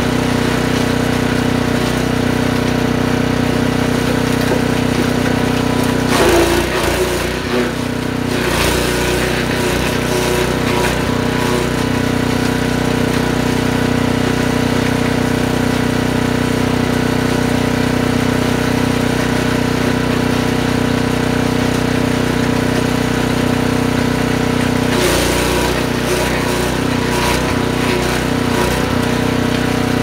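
Forest Master FM6DD compact wood chipper's 6.5 hp four-stroke petrol engine running steadily at speed. Its even note turns rougher and noisier for a couple of seconds about six seconds in and again near the end.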